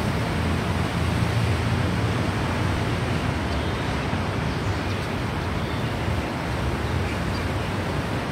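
Steady low rumble and hiss of wind on the microphone mixed with road traffic from the elevated road beside the station, with no distinct events.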